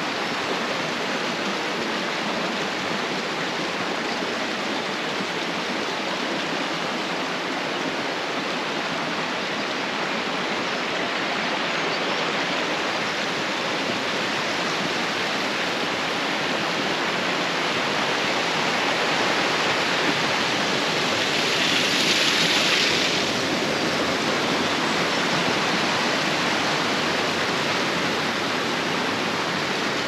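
Rocky mountain stream rushing over stones in a steady wash of water noise, swelling briefly about three quarters of the way through.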